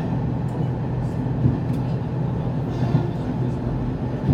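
Sanriku Railway diesel railcar running, heard from inside the car: a steady engine drone and wheel rumble, with a few light knocks from the rails about a second and a half apart.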